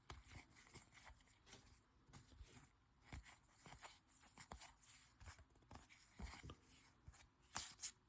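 Faint handling of trading cards: soft taps, slides and rustles as baseball cards from a freshly opened pack are flipped through by hand.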